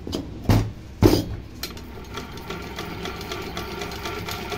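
Two heavy knocks from an Aneeta pico sewing machine being handled, then its freshly oiled mechanism running with a rapid, even ticking and a steady whine.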